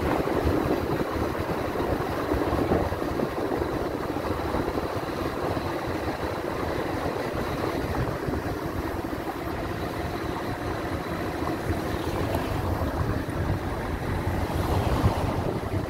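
Car engine running with steady road and tyre noise as the car drives slowly through town streets, with a low rumble underneath.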